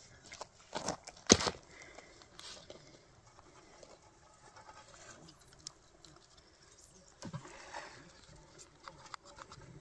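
Close handling noises: a few sharp knocks, the loudest about a second and a half in, and a stretch of rustling near the end.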